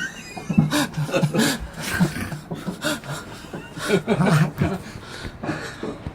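A person laughing in short, irregular bursts with breathy giggles.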